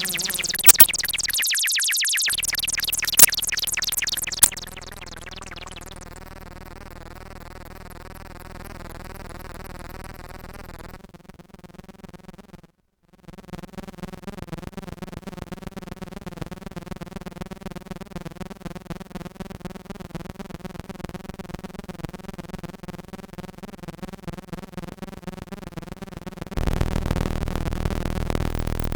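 Behringer Crave analog synthesizer playing: a loud, bright, fast-pulsing patch with a few sharp clicks for the first few seconds, then a quieter held drone with a wobbling tone that cuts out briefly around the middle. A louder, noisier sound comes in near the end.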